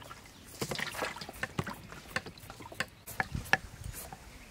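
A metal hand shredder scraping strips from a peeled green papaya, in quick, irregular wet scrapes and clicks.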